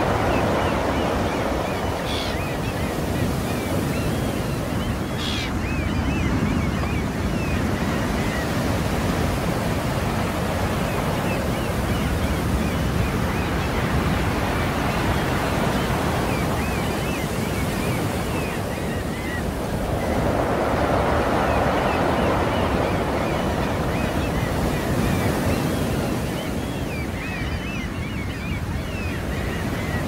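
Rough sea surf: waves breaking on the shore one after another and foam washing back, a steady rushing noise that swells as a big wave breaks at the start and again about two-thirds of the way through.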